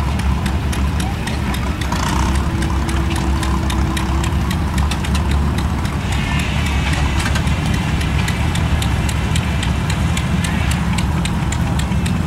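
A Keystone Driller Co. well-drilling rig running: a steady low engine drone with rapid, evenly spaced clicking from the machinery.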